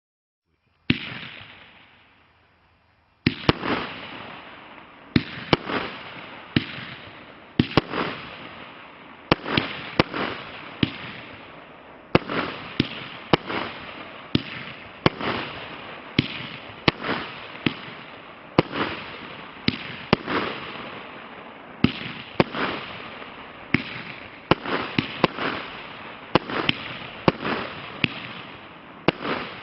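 A 36-shot fireworks cake (TB14) firing shot after shot: sharp bangs about once a second, each trailing off. One bang comes about a second in, then after a pause of about two seconds the rest follow in a steady run.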